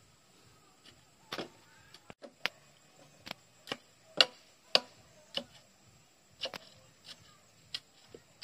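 A long wooden stick jabbed again and again into the ground at the base of a wooden power-line pole, tamping the soil: a string of sharp knocks, about two a second and unevenly spaced, loudest around the middle.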